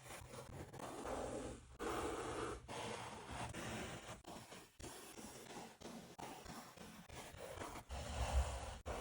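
Hand work on a leather catcher's mitt: a run of irregular rubbing and scraping strokes, each lasting about half a second to a second, with short breaks between them.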